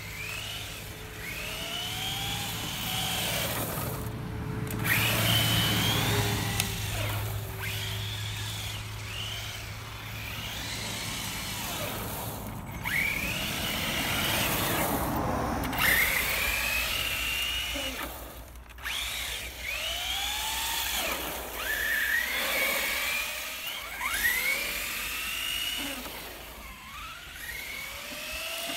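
Traxxas Slash 4x4 RC car's electric motor whining, its pitch rising sharply each time the car accelerates and falling as it lets off, over and over in quick bursts.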